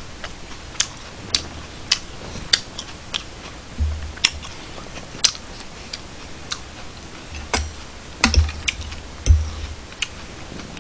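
Metal spoon and chopsticks clinking and scraping against a ceramic bowl and plate while eating: irregular sharp clicks, with a few dull thumps on the table, the loudest near the end.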